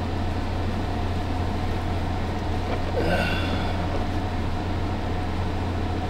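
Window air conditioner running with a steady low hum and even drone.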